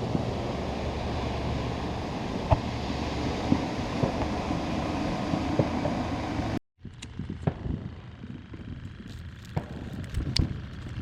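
A bait-bucket aerator runs with a steady bubbling hiss and a low hum. After a sudden cut, distant fireworks pop and crackle in scattered sharp reports.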